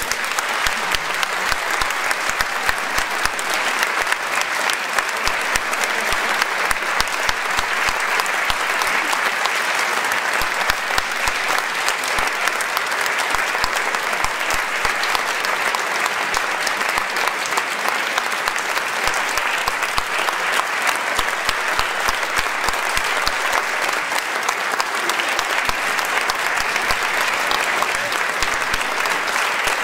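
Concert audience applauding: dense, steady clapping of many hands, breaking out right after the music ends.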